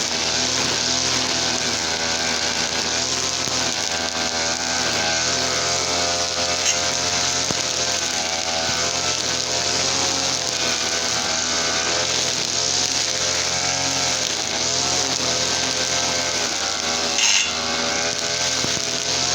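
Two-stroke TL33 brush cutter engine running steadily at working speed, its pitch wavering slightly up and down, with a short sharp knock near the end.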